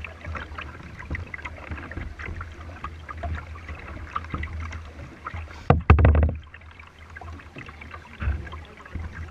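Water lapping and splashing against the plastic hull of a kayak as it moves along, with many small irregular splashes and a low rumble. About six seconds in comes a louder splash and thump, the loudest sound here.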